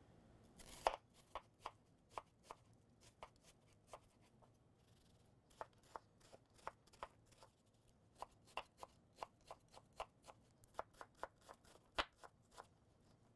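Chef's knife chopping a red onion on a plastic cutting board: a run of sharp, irregular taps of the blade on the board, sparse at first, then after a short pause coming faster, a few a second.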